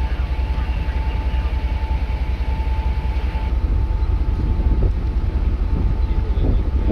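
Strong gusty wind buffeting the microphone, a heavy low rumble. A faint steady high tone stops about halfway through.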